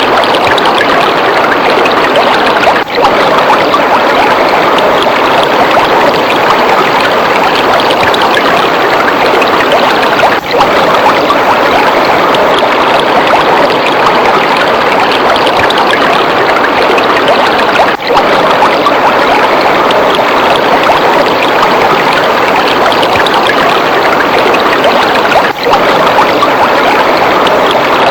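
Waterfall: a loud, steady rush of falling water, with brief dips in level about every seven and a half seconds.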